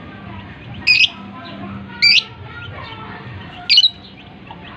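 Lovebird giving three short, shrill, loud squawks, each about a fifth of a second, over fainter background chirping.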